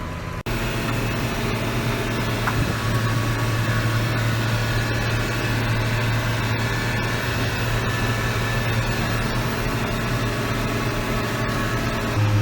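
Farm vehicle engine running steadily with a strong low hum, starting after a brief dropout about half a second in.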